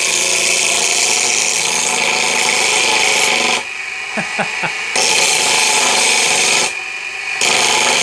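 A grinding wheel turned by a 180-volt treadmill DC motor, run here on 24 volts, grinds a piece of metal with a harsh, steady grinding. The grinding stops twice for a moment, about three and a half seconds in and again about seven seconds in.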